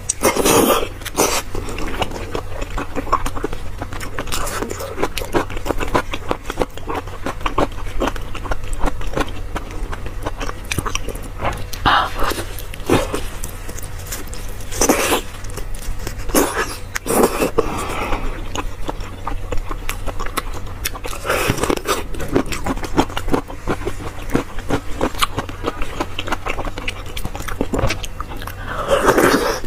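Close-miked wet chewing of soft, fatty braised pork mesentery fat (cockscomb oil), with sticky mouth clicks and smacks, and a louder sucking sound every few seconds as pieces are drawn into the mouth. A steady low hum runs underneath.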